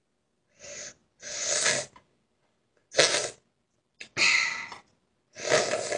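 A person slurping food noisily, five slurps in a row, each swelling and then cutting off.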